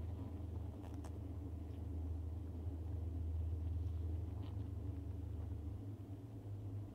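Honeybee colony on open comb humming steadily, with a steady low rumble underneath and a couple of faint clicks.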